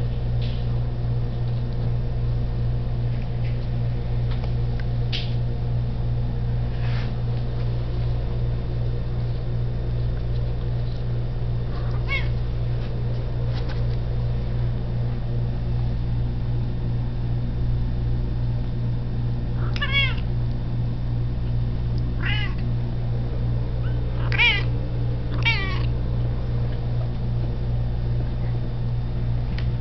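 Four-week-old kittens mewing: a few short, high-pitched mews, faint and scattered at first, clustered and louder in the second half, over a steady low hum.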